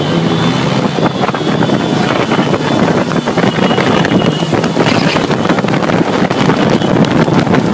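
Engines of a pack of motor scooters and motorbikes running at speed together, loud and steady, mixed with wind buffeting on the microphone.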